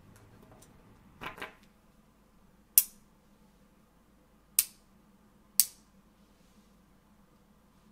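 5 mm magnetic balls snapping together as clusters are joined: a short rattle of small clicks about a second in, then three sharp metallic clicks, the last two about a second apart.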